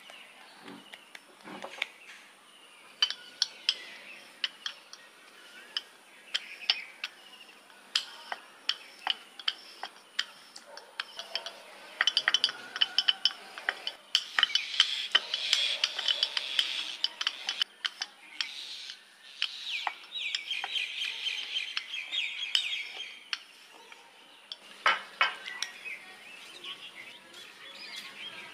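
Irregular sharp clinks and taps of kitchen utensils and dishes.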